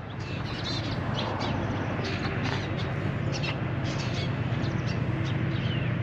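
Birds chirping and calling in quick short notes over a steady low rumble that slowly grows louder.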